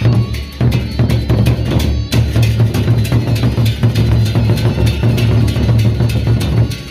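Gendang beleq ensemble: large Sasak barrel drums beaten by hand on the march, playing a fast, dense rhythm with a strong low boom. The drumming drops away just before the end.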